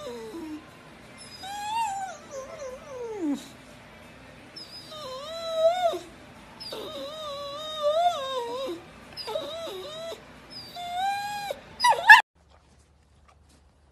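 Boxer dog howling and whining in a series of long calls that rise and fall in pitch, the last one breaking off sharply about twelve seconds in.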